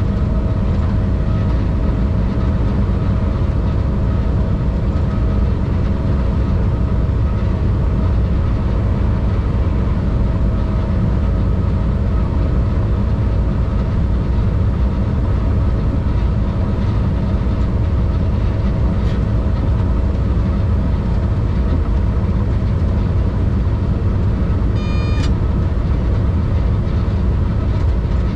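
A train running along the line: a steady, loud rumble with a few steady tones over it. A short high beep sounds once, about 25 seconds in.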